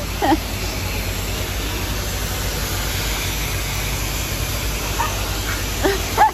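High-pressure car wash wand spraying water in a steady hiss against a car's side and the wet concrete floor.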